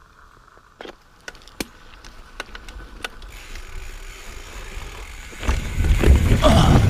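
Mountain bike on rock: a few sharp clicks and knocks, then a rising rush that turns into a loud low rumble in the last second and a half, as the bike rolls over the rocks.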